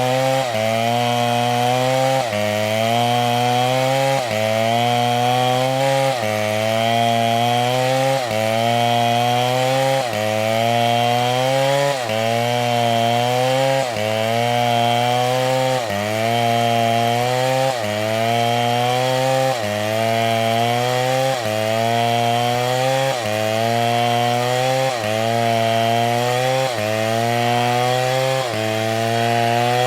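STIHL two-stroke chainsaw running hard while cutting palm wood, its engine pitch dipping under load and recovering in a regular cycle about every second and a half to two seconds.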